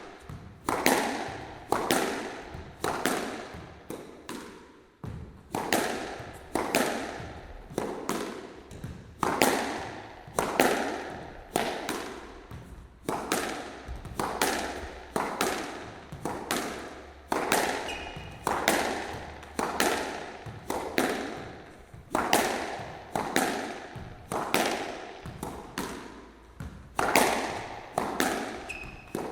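Squash rally: a ball struck by rackets and smacking off the court walls in quick succession, each hit a sharp crack with a short echo.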